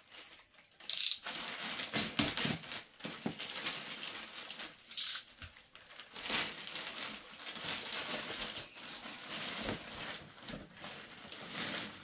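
Plastic bags rustling and crinkling as a boxed toy set is worked out of a grey mailer bag and a black plastic bag, with louder crackles about a second in and again about five seconds in.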